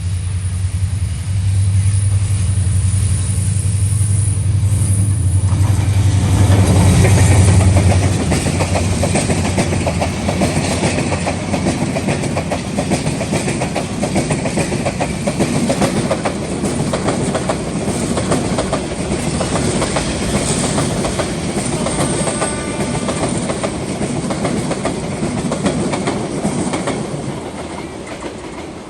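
A diesel locomotive passes close by with a loud, steady engine drone. It is followed by the coaches of a passenger train rolling past with rapid, continuous wheel clatter over the rail joints, which fades near the end.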